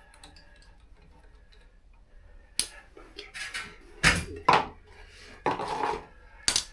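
Metal tools and parts being handled during motorcycle brake and wheel work: about 2.5 s of quiet, then a string of clanks, knocks and short scrapes, the loudest a few at about 4 s, 4.5 s and 6.5 s.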